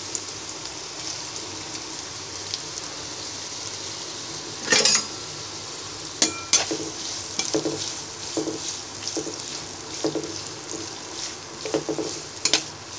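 Sliced onions sizzling in hot oil in a kadai. A spatula knocks sharply against the pan twice around five and six seconds in, then stirs and scrapes the onions in quick repeated strokes, about two a second.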